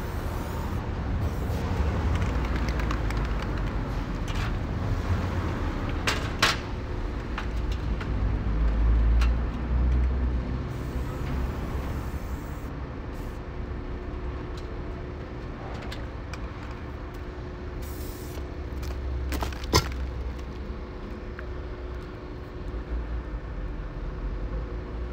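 Street traffic: the low, uneven rumble of passing vehicles that swells and fades, with two sharp knocks, one about a quarter of the way in and one about three quarters in.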